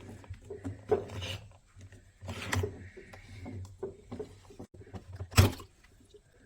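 Irregular rustling, rubbing and light knocks of objects being handled, with one louder crackle about five seconds in.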